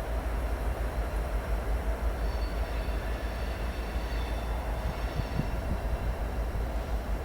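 Freight train cars rolling past with a steady low rumble of wheels on rail. A faint high wheel squeal comes in about two seconds in and fades a few seconds later.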